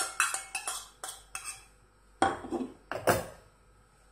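Stainless-steel plate and small steel bowl clinking together as a soft ingredient is knocked off the plate: a quick run of sharp clinks in the first second and a half. Then two louder clinks and scrapes of a steel spoon in the bowl, a little after two seconds and around three seconds.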